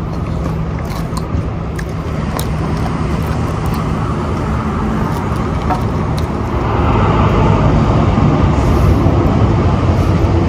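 Road traffic: steady car engine and tyre noise close by, growing louder about two-thirds of the way through.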